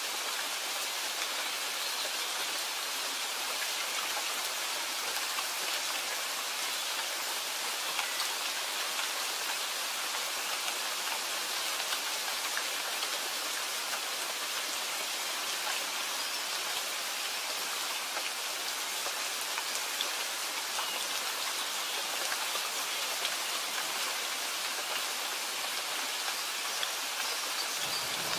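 Steady rain falling: an even hiss of many fine drops that holds constant throughout, with no distinct drips or thunder.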